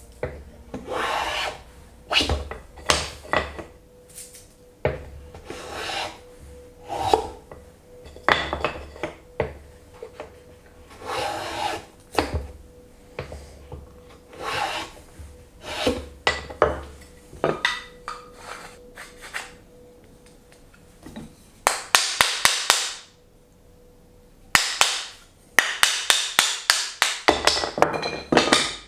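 Hand tools working hardwood: a series of uneven strokes, some short and some drawn out to about a second, then two fast flurries of short, sharp strokes near the end.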